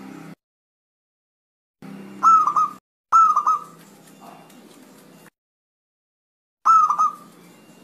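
Zebra dove (perkutut) calling: three short bursts of staccato cooing notes, about two, three and seven seconds in, with dead silence between them.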